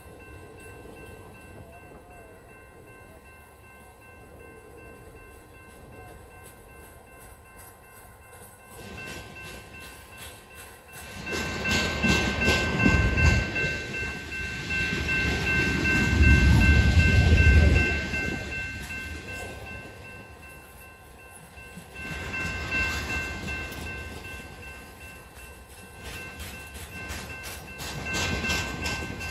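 Freight train's boxcars rolling past, wheels clattering over the rails, with a steady high-pitched ringing tone running through the noise. The sound swells loud for several seconds in the middle, eases, and rises again near the end.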